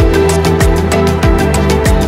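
Background music with a steady beat: a deep kick drum that drops in pitch about every two-thirds of a second, under fast hi-hat ticks and held notes.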